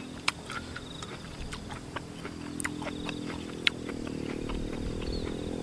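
Eating sounds: scattered small sharp clicks of a metal spoon in a clay bowl and of chewing. A steady engine hum grows louder from about two seconds in.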